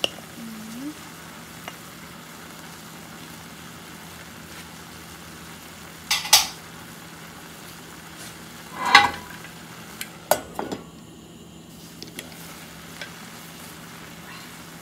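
Pot of chicken curry with glass noodles cooking on a gas stove, a steady soft sizzle throughout. A few sharp knocks and a scrape against the stainless-steel pot come around six, nine and ten seconds in.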